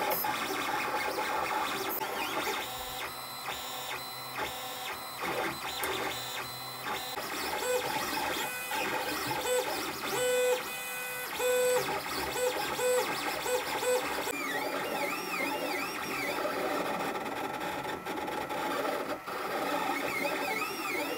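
LulzBot TAZ 3D printer printing: its stepper motors whine at shifting pitches as the print head moves. Short, rapidly repeated tones come through the middle, and swooping rising-and-falling tones over the last several seconds.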